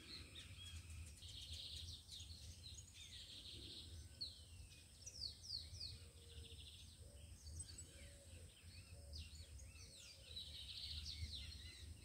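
Faint chorus of birds singing and chirping, with many short calls sweeping up and down and a couple of buzzy trills, over a steady low rumble.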